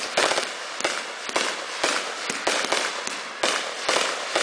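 Aerial fireworks bursting in a rapid string of sharp bangs, about two a second, with the crackle of the bursts filling the gaps between them.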